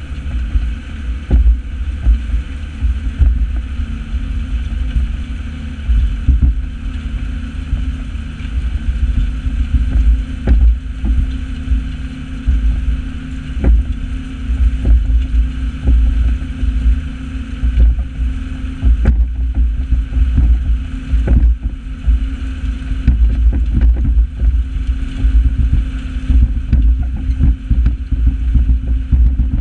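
New Holland 8160 tractor engine running steadily under load while pulling a Kverneland four-furrow reversible plough, with a deep rumble and scattered knocks and clatter.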